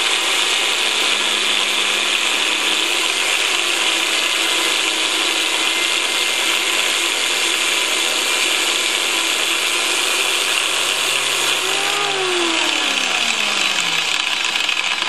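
Bench-mounted angle grinder with an abrasive cut-off disc cutting a slot in steel channel, a loud steady grinding screech. Near the end its pitch falls away as the motor winds down.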